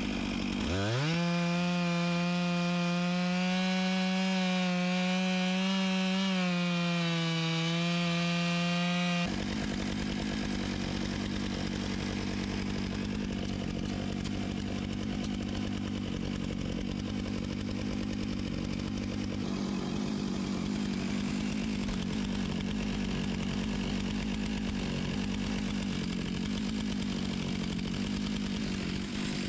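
Stihl 661 chainsaw, a big two-stroke, revving up to full throttle and holding a steady high-revving note. About nine seconds in, the sound changes abruptly to a rougher, noisier running that carries on steadily.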